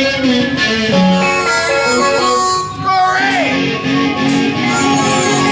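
Blues band music led by a guitar line of held notes, with one note bent and falling away about three seconds in.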